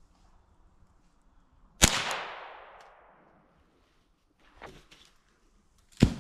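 Two gunshots about four seconds apart. The first echoes through the woods and fades over about a second. A fainter crack comes between them.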